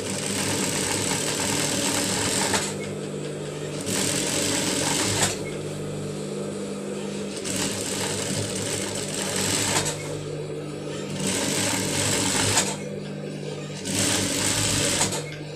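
Sewing machine stitching along a fabric seam in five short runs with brief pauses between them, its motor keeping up a steady low hum through the pauses.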